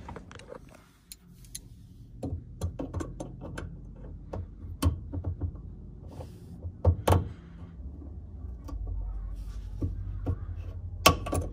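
Scattered small clicks and light metal knocks of pliers working a hose clamp and fuel line off the top of a car's fuel pump assembly, with sharper clicks about five, seven and eleven seconds in.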